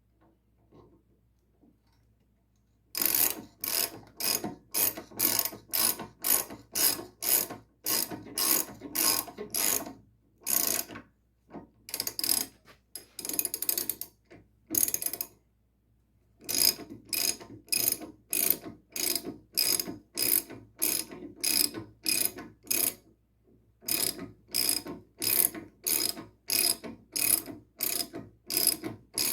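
Hand ratchet wrench clicking in quick back-and-forth strokes, about two to three a second, with a few short pauses. It is turning the swingarm pivot bolt of a Triumph Bonneville through its fine thread, which is why the run-down takes so many strokes.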